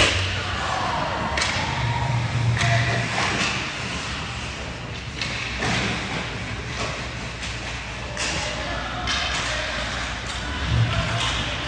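Basketball game on an indoor court: irregular thuds of the ball and players' feet, echoing in a large hall, with scattered shouts. The loudest knocks come at the very start and again about eleven seconds in.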